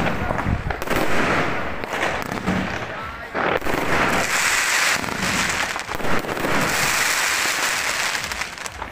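Fireworks and firecrackers going off all around in a steady barrage of bangs and pops, with a dense crackle from about four seconds in until near the end.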